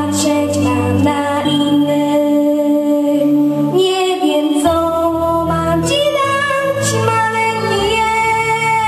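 A young girl singing a festive song into a handheld microphone, amplified through the hall's loudspeakers over instrumental accompaniment with sustained bass notes.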